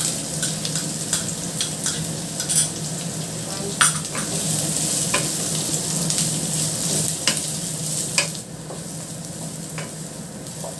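Freshly added chopped onions sizzling in hot oil in a non-stick pan while being stirred with a wooden spatula, with scattered clicks and scrapes from the utensil against the pan. The sizzle drops a little about eight seconds in.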